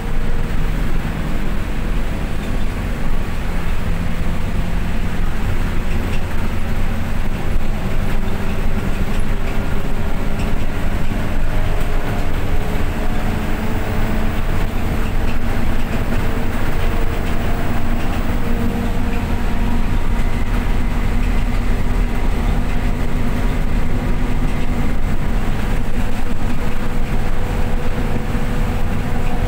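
Steady running noise of a moving vehicle heard from inside, a low rumble with faint engine or drivetrain tones that drift slowly in pitch.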